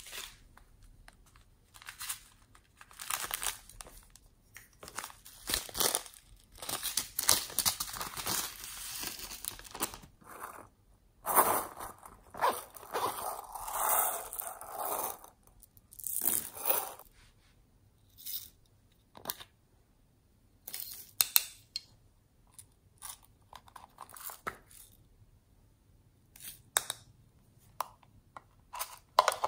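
Plastic packaging crinkling and tearing in irregular bursts as packets of slime add-ins are handled and opened, with a longer, denser stretch about halfway through. Short clicks and taps of hard plastic follow in the later part.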